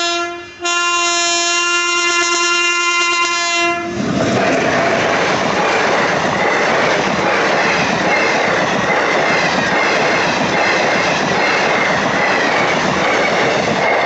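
Indian Railways passenger train horn: a short blast ends about half a second in, then a long blast of one steady pitch lasts about three seconds. After that the train passes at speed with loud, steady rumbling and wheel clatter.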